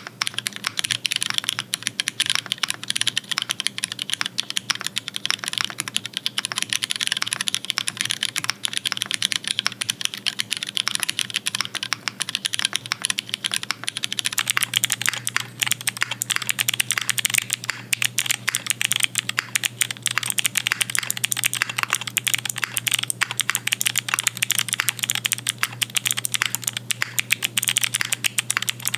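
Rapid, continuous typing on a custom mechanical keyboard, a dense run of keystroke clacks. About halfway through, the sound of the keystrokes changes.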